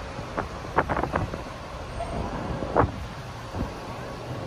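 Street ambience: a steady low rumble of road traffic mixed with wind on the microphone, with a few brief snatches of passing voices.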